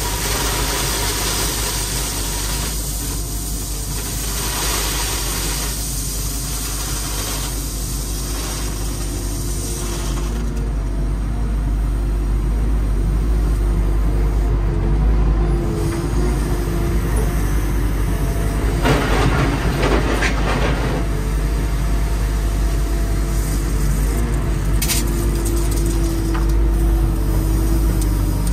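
Excavator engine running steadily, heard from inside the cab, while crushed stone pours out of the bucket at times, with a louder rush of stone about twenty seconds in.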